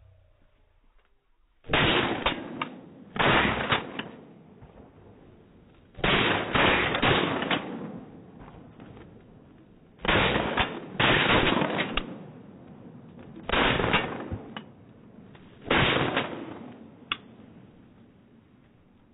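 Duck hunters' shotguns firing a long series of loud blasts in clusters of two to four shots, some in quick succession, each with a short trailing echo.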